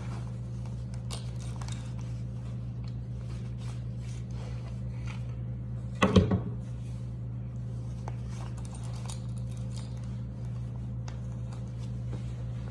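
Clothing rustle and handling of a knife and its sheath, with one sharp knock about six seconds in as they are set down on a wooden tabletop, over a steady low hum.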